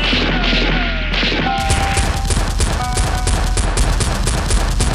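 Rapid, repeated gunfire sound effects in quick bursts, starting about a second and a half in, laid over action background music.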